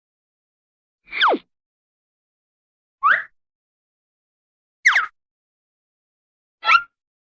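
Four short Hanna-Barbera-style cartoon sound effects, one after another about every two seconds with silence between: whistle-like zips, the first sliding steeply down, the second rising, the third falling, the last a brief warble.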